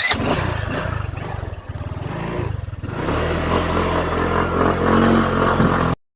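Motorcycle engine running while riding: rougher and noisier for the first three seconds, then a steadier low hum.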